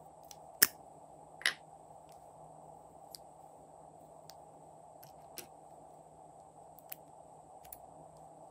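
Two plastic lipstick caps pulled off, giving a sharp click about half a second in and a second, slightly longer click about a second later, then a few faint plastic ticks as the tubes are handled, over a steady low hiss.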